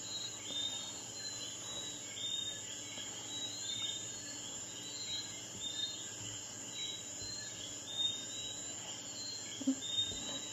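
Wire whisk stirring thick cake batter in a glass bowl, faint scraping with a couple of light knocks of the whisk near the end, over a steady background of insects chirping in short repeated chirps.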